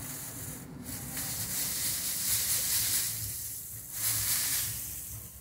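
Dry rustling and rattling of a bundle of dried sesame plants being shaken upside down over a tarp to knock the seeds out of the pods, in two long swells.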